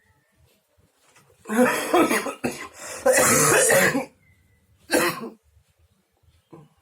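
A person coughing in three bouts: two hard fits of about a second each, then a single short cough. It is a chesty cough that has started bringing up phlegm.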